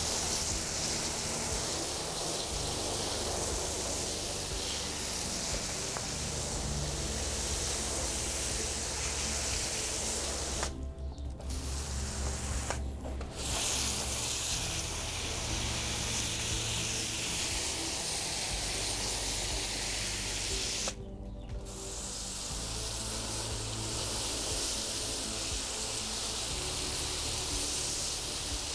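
Garden hose spraying water onto potted plants in a steady hiss, cutting out briefly three times. Soft background music runs underneath.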